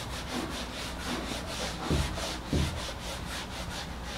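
Eraser rubbing back and forth across a whiteboard, a hissing scrub in quick strokes of about five a second, with two dull thumps about halfway through.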